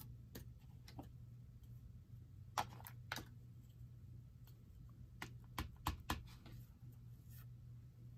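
Scattered light clicks and taps of stamping supplies being handled: a clear stamp picked off its sheet and a Distress Oxide ink pad's lid taken off. A faint steady low hum runs underneath.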